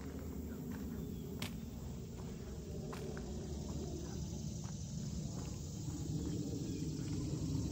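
Footsteps of a hiker walking on a trail: a few sharp steps stand out over a steady low rumble, which grows slightly louder near the end.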